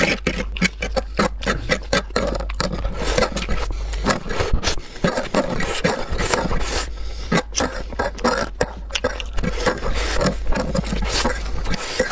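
Wet slurping and chewing of saucy instant noodles, in a dense run of quick smacks and clicks, with a fork scraping across a baking tray as the noodles are pushed into the mouth.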